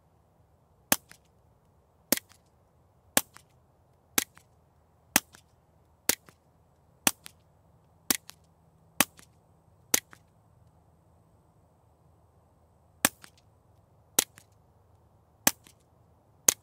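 Suppressed .22 LR pistol shots from a stainless Walther PPK/S .22 fitted with a CGS Group Siren 22 suppressor, fired steadily about once a second: ten shots, a pause of about three seconds, then four more. Each shot is a short sharp crack followed by a much fainter tick.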